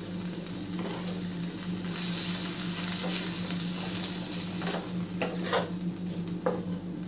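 Chopped tomatoes with spices sizzling in oil in a non-stick pan while being stirred with a wooden spatula. A steady hiss is loudest about two to four seconds in, and several short scrapes of the spatula against the pan come in the second half.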